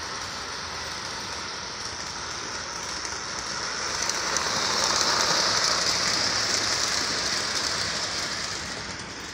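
Lionel 763 Hudson O-gauge toy steam locomotive and its passenger cars running on three-rail tubular track: a steady rushing hiss of wheels on rails and the electric motor. It grows loudest about five seconds in as the train passes close by, then fades as it moves away.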